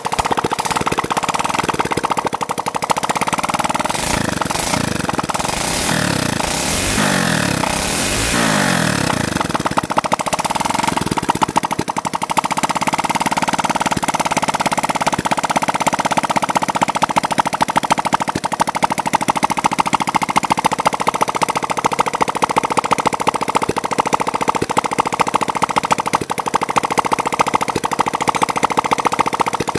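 Small single-cylinder four-stroke motorcycle engine of the C90 type running without its muffler, a rapid popping rattle coming from the open exhaust. It is revved up and down through the first dozen seconds, then settles to a steady fast idle. This is its first run after a new piston and rebuilt top end.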